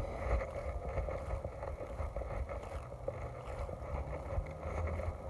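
Steady low rumble of wind on a chest-mounted phone microphone, with faint scattered clicks and rustles of handling.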